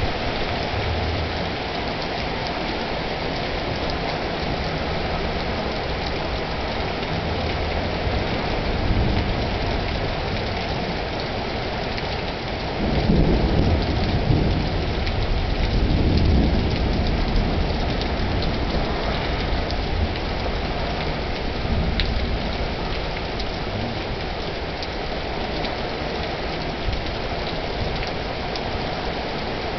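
Heavy rain pouring steadily, with thunder rumbling low in two swells about halfway through.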